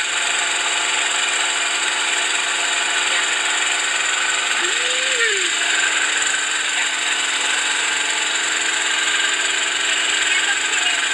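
Loud, steady running noise of a fishing boat's machinery, a constant mechanical drone that does not let up.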